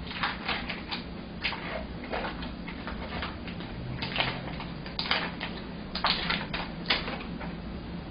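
Plastic sealing film crinkling and crackling as it is peeled off a plastic tub of soft tofu, in short irregular bursts.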